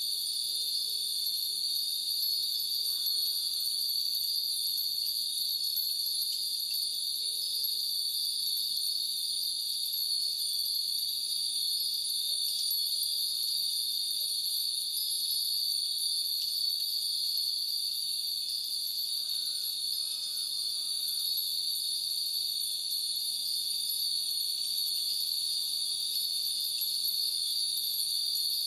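Hundreds of wind bells (fūrin) tinkling together, over a steady, high, dense insect chorus that holds through the whole stretch.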